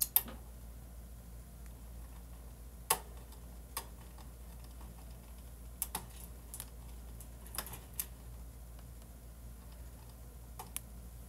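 About a dozen light, sharp clicks and taps at irregular intervals, some in quick pairs, over a faint steady low hum.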